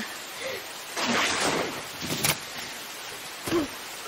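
Steady rain hiss, with a few short grunting vocal sounds and one sharp knock about two seconds in.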